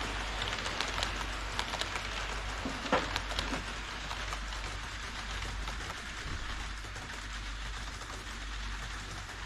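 HO scale model train, the tail of a Twilight Express, running on KATO Unitrack elevated track: a steady hiss of metal wheels on the rails with sharp clicks over the rail joints, the loudest about three seconds in. After about four seconds the clicks stop and only the even rolling hiss goes on, a little quieter.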